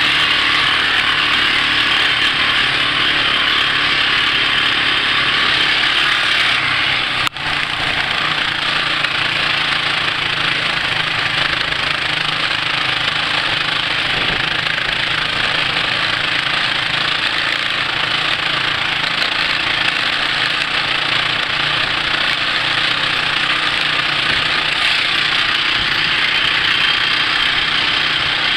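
Quad (ATV) engines running steadily at riding speed under a constant rushing noise. The sound drops out for an instant about seven seconds in, and after that the low engine note is weaker.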